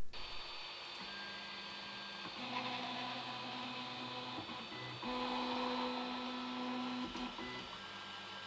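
Stepper motors of a HyperCube Evolution 3D printer driving the print head along its axes in a movement test, a steady whine at a different pitch for each move. There are about four moves of one to two seconds each, with brief pauses between them.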